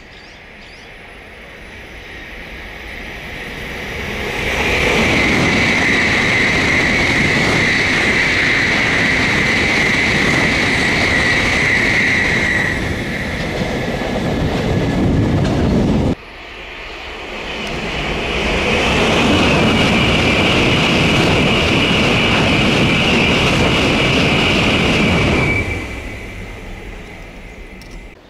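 Two Tokaido Shinkansen N700-series high-speed trains passing at speed, each a long loud rush of air and wheel noise with a steady high-pitched tone over it. The first cuts off suddenly about halfway through. The second swells up soon after and dies away near the end.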